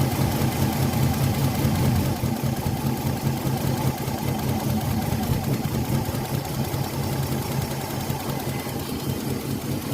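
Nissan Maxima engine idling steadily while misfiring on two cylinders whose ignition coils get no trigger signal from the engine computer, a fault traced to a failed ignition driver chip inside the ECU.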